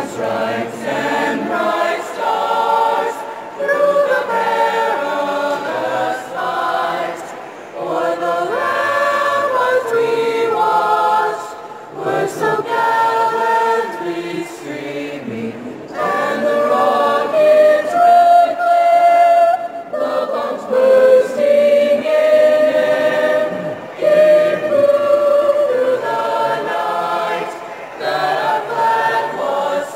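High school choir singing a cappella in several voice parts, in sung phrases with short breaks between them.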